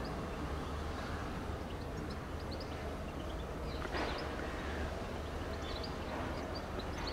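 Class 465 Networker electric train approaching at low speed, a steady distant running noise with a constant low hum, and one sharp click about four seconds in. Small birds chirp faintly throughout.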